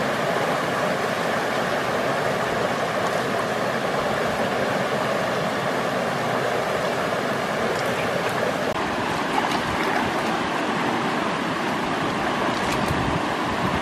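A rocky mountain stream rushing over stones in small rapids, a steady rush of water.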